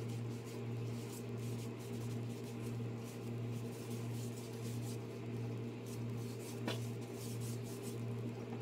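Faint strokes of a cloth pad rubbing along a wooden walking stick, under a steady low hum that is the loudest sound throughout. One light click about two-thirds of the way in.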